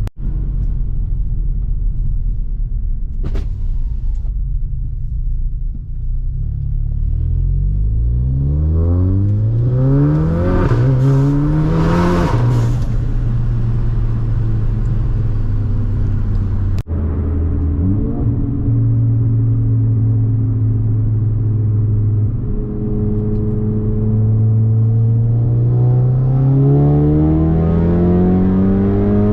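Tuned Audi A3's turbocharged EA888 four-cylinder engine driving on the road, running on new 1300cc port injectors. Engine pitch climbs hard about six seconds in and drops at a gear change. It then holds steady and climbs again near the end, with a brief abrupt break in the middle.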